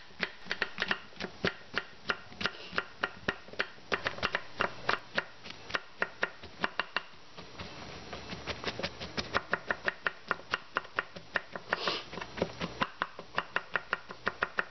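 Chef's knife slicing white button mushrooms on a wooden cutting board: a quick, even run of sharp taps, several a second, with a short lull about halfway through.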